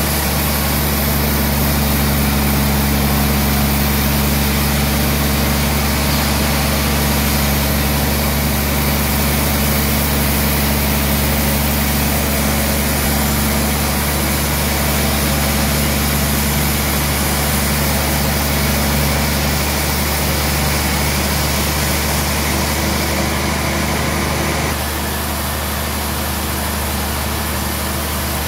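Bandsaw sawmill running: a steady, loud machine hum with an even hiss over it. About 25 seconds in it drops slightly in level and its tone shifts.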